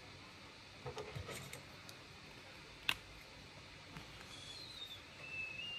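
Small clicks and taps from a pen being handled at a table, with one sharp click about three seconds in. Near the end, a few faint high whistle-like notes that step up and down in pitch.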